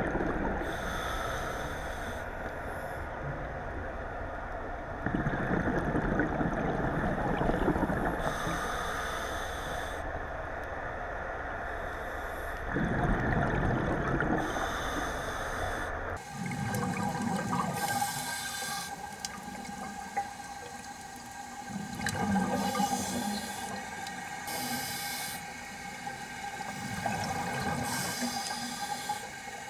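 Scuba diver breathing underwater through a regulator: a hiss on each inhale alternating with a rush of exhaled bubbles, slow breaths repeating every five seconds or so. The sound changes abruptly about halfway through, as if cut to another recording, and a faint steady hum runs under the second half.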